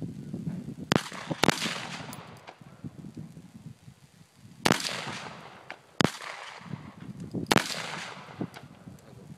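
AR-15 rifle fired one shot at a time: five sharp reports with uneven gaps, about a second in, half a second later, near five seconds, at six, and at seven and a half seconds, most trailing off in a short ringing echo.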